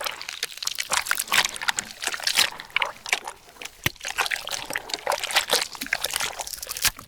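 Wet, squelching flesh-and-maggot gore sound effect: a dense, irregular stream of moist crackles and squishes that starts and stops abruptly.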